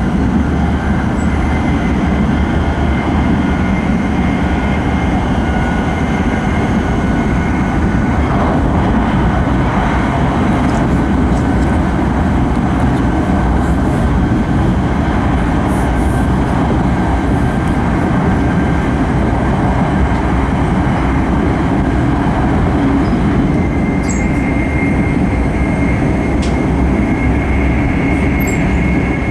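Running noise of an E5 series Shinkansen heard from inside the passenger cabin at speed: a steady rumble of wheels on rail and rushing air, with a faint steady high whine over it.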